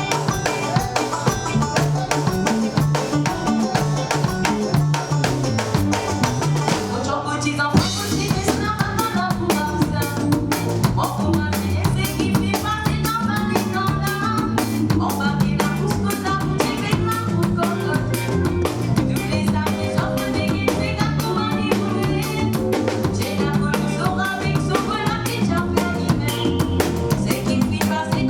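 A band playing live during a sound check: drum kit and bass keeping a steady beat, with a brief break about seven seconds in before the music picks up again with a melody over it.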